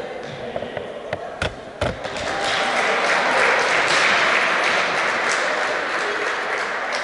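Two dull thumps, then a few seconds of group clapping that swells and fades, echoing in a large sports hall.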